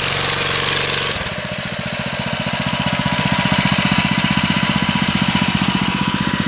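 Small 13-horsepower engine running. About a second in it drops from a steady hum to a slower, pulsing idle with each firing stroke distinct, then grows slightly louder.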